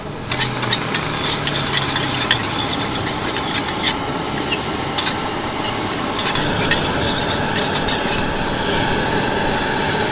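Metal spatula scraping and clicking against a steel wok as fried rice is stir-fried, the clicks clearest in the first half. Beneath it runs a steady sizzle and rushing noise that grows a little louder about six seconds in.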